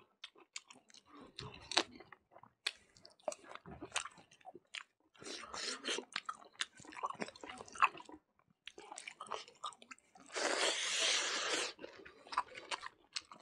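Close-up mouth sounds of a person eating pork tail and rice by hand: wet chewing with many short smacks and crunches. About ten seconds in comes a denser, noisier burst lasting about a second and a half.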